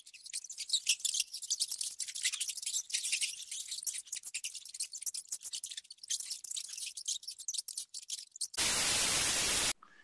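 Brown rat gnawing and chewing: a rapid, uneven crackle of tiny high-pitched clicks. Near the end it gives way to a burst of hiss-like static lasting about a second.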